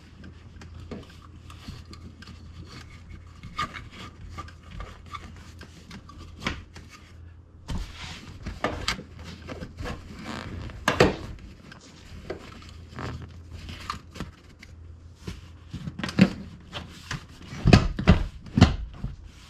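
Rear seat of a Jeep Grand Cherokee being handled back into place: seat belt webbing and buckles rubbing and clicking as they are pulled up through the seat. Several heavy thumps near the end come as the seat is pushed down into its latches.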